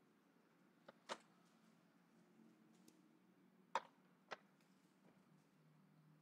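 Whiteboard marker tapping against the board in short sharp clicks, two louder ones about a second in and near four seconds, each followed closely by a fainter one, over near silence.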